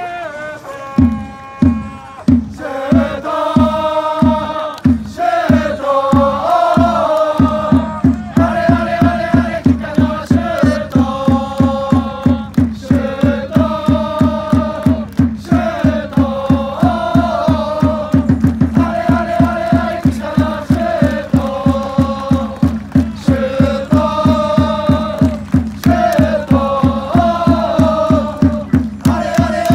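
Football supporters singing a chant in unison, led by a bass drum. The drum starts about a second in at a slow beat, then doubles its pace after about seven seconds and keeps a fast steady beat under the singing.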